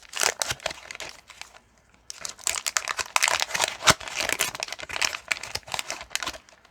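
Wax paper wrapper of a 1989 Fleer baseball card pack crinkling as it is torn open and peeled back, with a short pause about one and a half seconds in and a sharp snap about midway.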